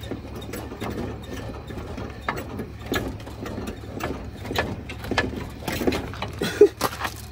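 Repeated metallic clicks and creaks, roughly three a second, with a short squeak just before the end, as the front coil spring and suspension of an OBS Ford F-150 are forced into place.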